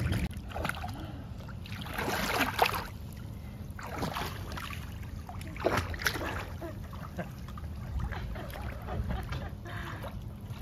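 Swimming-pool water sloshing and splashing as a man wades and moves a baby's inflatable float, in irregular swishes, the strongest about two seconds in and again near six seconds, over a low steady rumble.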